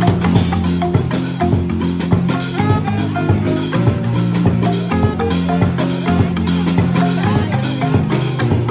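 Marimba band playing live: quick struck marimba notes over a deep bass line, with drums keeping a steady beat.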